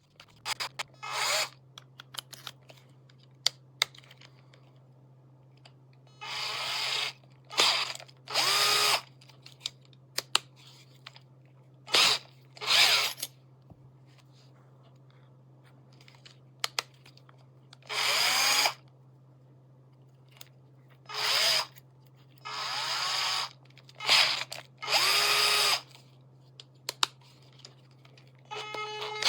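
Small cordless drill motor run in about a dozen short trigger pulls, each lasting half a second to a second and winding up and down in pitch, with a steady low hum underneath.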